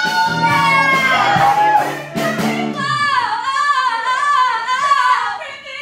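Female voices belting the final phrase of a musical-theatre song with instrumental accompaniment. About three seconds in, the accompaniment stops and one voice holds a long high note with wide vibrato, fading out near the end.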